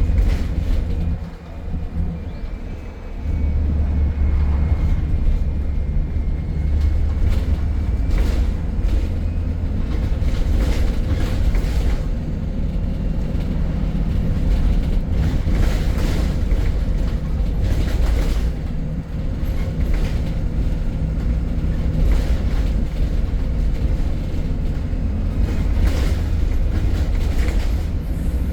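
MAN E300 single-deck bus heard from inside while running, a steady low engine and road rumble that grows louder about three seconds in. Rattles and knocks from the body and fittings come through it again and again.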